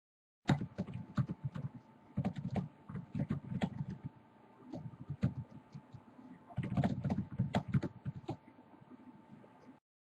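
Computer keyboard typing in quick runs of keystrokes, with short pauses between the runs.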